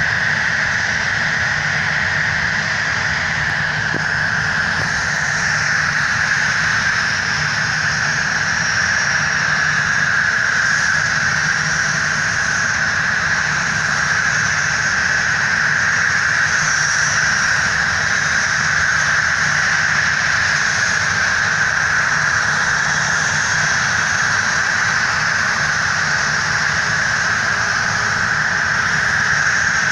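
The CFM56-7 jet engines of a Boeing 737-700 running steadily: an even whine and rush with a low hum underneath, holding the same level throughout without spooling up or down.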